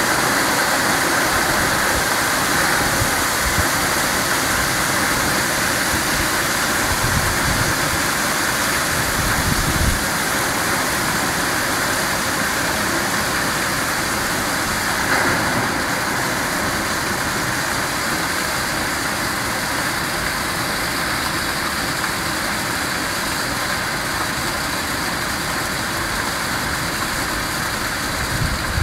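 Light hailstorm: hail and rain falling steadily, an even hiss that does not let up.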